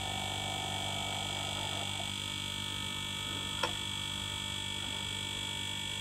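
Two hermetic fridge compressors, chained in series as a vacuum pump, running with a steady hum and a thin high tone above it. A faint click comes about three and a half seconds in.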